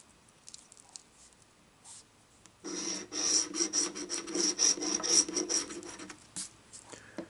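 Scratch-off lottery ticket being scratched: a steady rasping scrape lasting about three and a half seconds, starting about two and a half seconds in, with a few faint clicks before it.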